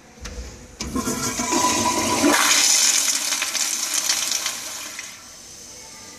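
American Standard Madera toilet flushing under a flushometer valve: a low thump, then a loud rush of water into the bowl from about a second in. The rush dies down to a quieter steady flow about five seconds in.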